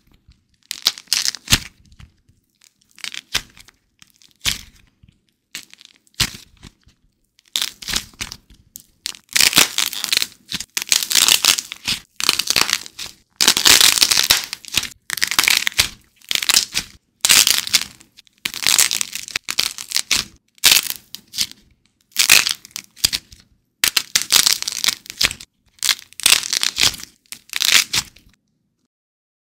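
Crackling and crunching of air-dried modelling clay being squeezed, broken and torn apart by hand, in a run of short bursts. They come thicker and louder from about eight seconds in and stop shortly before the end.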